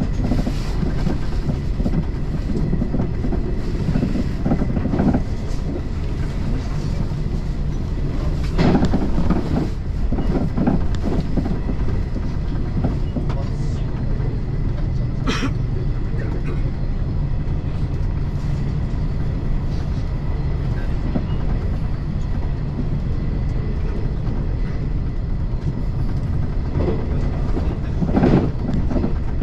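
JR 381 series electric train running at speed, heard from inside the front car: a steady low rumble with occasional short clunks of the wheels over rail joints, the strongest about nine seconds in and near the end.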